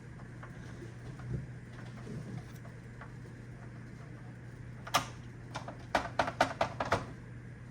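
Clicks and taps of hard plastic parts and a screwdriver as a Roomba 690 robot vacuum is worked apart by hand: one sharp click about five seconds in, then a quick run of about eight clicks over the next second and a half. A faint steady hum runs underneath.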